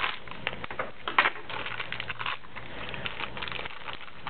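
Clear plastic packaging crinkling and rustling under fingers as it is opened, with many irregular small clicks and crackles.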